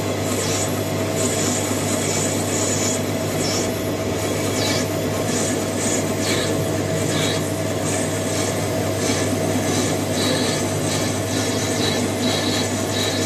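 Metal lathe running under a cut: a steady hum from the spindle and gearing, with a hissing, scraping sound from the turning tool cutting a steel bar that swells and fades as the cut goes on.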